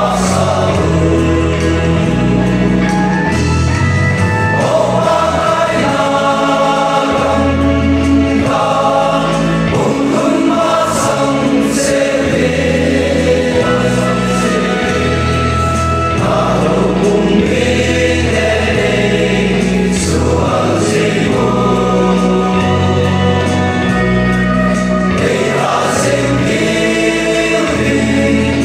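Male voice choir singing a gospel song through microphones, over a low bass line that changes note every second or two.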